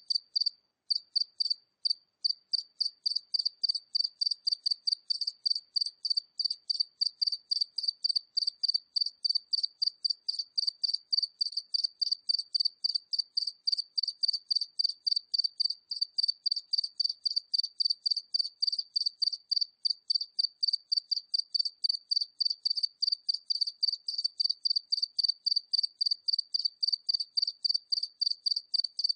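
A single cricket chirping at medium distance: a steady run of evenly spaced, high-pitched chirps, about three to four a second, with a brief pause near the start.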